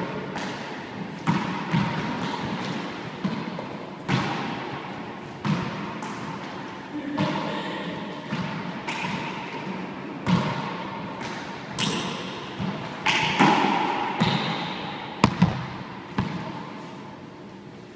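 Handball rally in an enclosed four-wall court: a gloved hand slaps the small rubber ball and the ball smacks off the walls and floor, each hit echoing sharply off the bare walls. The hits come at an irregular pace, often a second or less apart, and stop a couple of seconds before the end.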